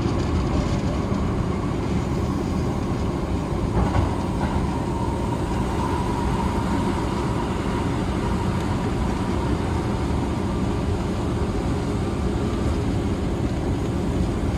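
Electric train running along the line, heard from inside the passenger car: a steady rumble of wheels on rails with a faint high hum through the middle, and a single knock about four seconds in.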